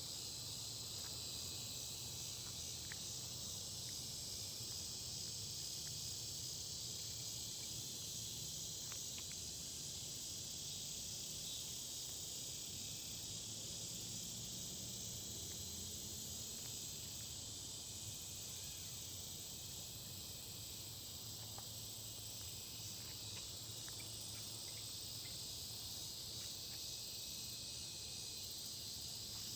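Late-summer evening insect chorus dominated by crickets: a steady high-pitched trill, with a fainter higher layer pulsing at a regular slow beat. A faint low hum runs underneath.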